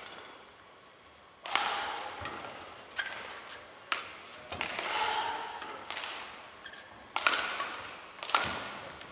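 Badminton rally: rackets striking a shuttlecock, a sharp hit roughly every one to one and a half seconds starting about a second and a half in, each with a short echo, mixed with brief squeaks of court shoes.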